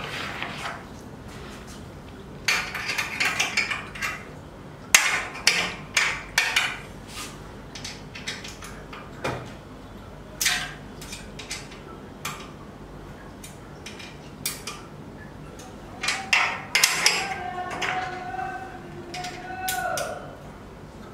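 Clicking and clinking of small bolts, nuts and a tool being fitted and tightened on a CNC table leg's angle gusset and aluminium extrusion frame. The sharp metallic clicks come in irregular clusters, and a short squeaky held tone sounds near the end.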